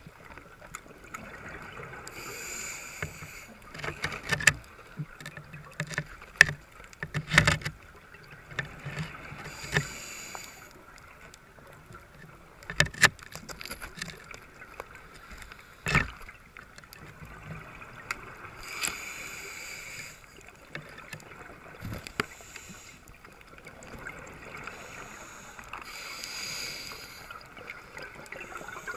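A scuba diver breathing through a regulator underwater, a hissing breath about every seven or eight seconds. Sharp clicks and knocks come in a cluster a few seconds in and again twice about halfway through.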